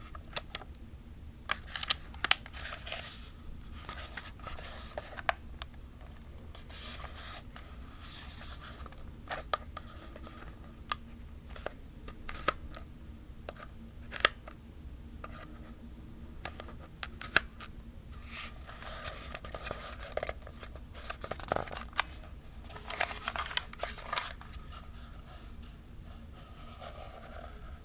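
Plastic film camera body handled and rubbed: scattered sharp plastic clicks and taps, with stretches of soft scratchy rubbing.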